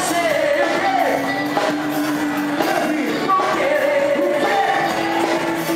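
Background music: a sung ballad, the singer holding long notes over the accompaniment.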